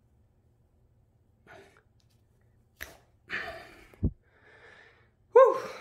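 A person breathing out hard, with a short voiced sigh near the end, tired from the effort of working a safety cutter through rope. A sharp click and a low bump come in between.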